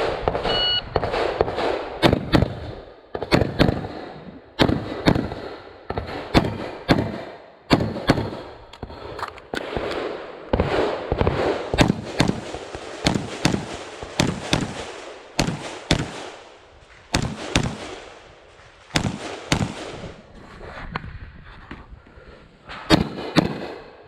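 A shot timer beeps once, briefly, under a second in. Then a pistol-caliber carbine fires rapid strings of shots, several a second, broken by short pauses, and each shot echoes.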